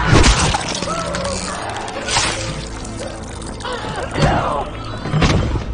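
Horror film soundtrack: dramatic music with four sudden noisy crashing hits, the loudest right at the start.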